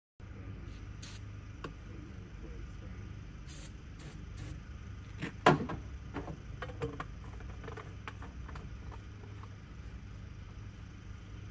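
A steady low hum with scattered clicks and knocks. The sharpest knock comes about five and a half seconds in.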